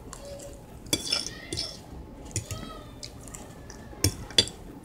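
Metal fork clinking and scraping against a ceramic plate while eating, a handful of sharp clinks, the two loudest close together near the end.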